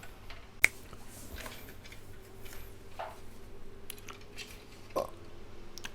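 Light clicks and taps of metal keyboard parts being handled and fitted back together, with one sharper click about half a second in.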